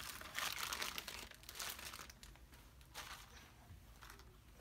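Rustling and handling noises with a few light clicks, strongest in the first two seconds and fading after.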